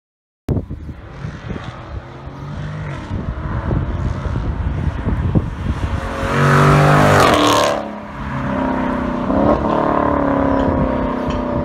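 A 2016 Dodge Charger SRT 392's 6.4-litre HEMI V8, its mufflers removed, accelerating with the exhaust note rising in pitch. It is loudest about six to eight seconds in, then dips and rises again as the car accelerates once more.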